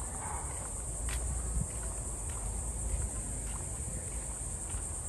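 Outdoor ambience while walking with a handheld camera: wind rumbling on the microphone, a few light taps of footsteps, and a steady high hiss.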